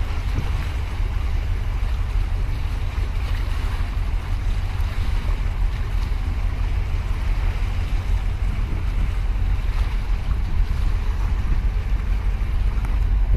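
Wind buffeting the microphone in a steady gusty rumble, over the even wash of harbour water lapping at the quay.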